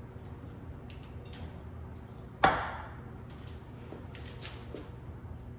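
Kitchen things being handled: a few faint clicks and knocks, and about two and a half seconds in one sharp clack with a short high ring, like a hard object set down or knocked against something.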